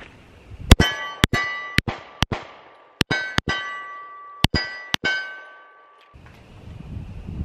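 A Springfield 1911 RO Elite Operator pistol in 10mm firing eight shots over about four seconds, mostly about half a second apart with short pauses. Each shot is a sharp crack followed by a ringing tone that fades away.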